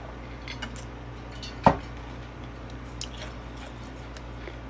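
Faint wet clicks and smacks of mukbang eating and drinking, with one sharp loud knock a little under two seconds in as a metal water bottle is set down on the table.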